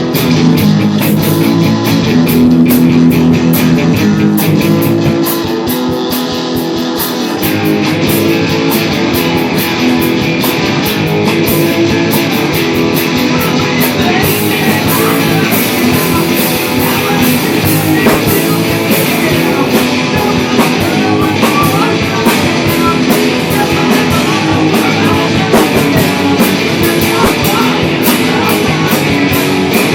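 Rock band demo recording: guitar over a drum kit, playing steadily throughout.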